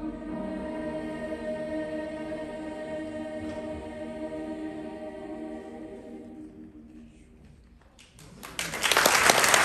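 Children's choir holding a final sustained chord that slowly dies away; after a brief hush about eight seconds in, the audience breaks into applause that quickly grows loud.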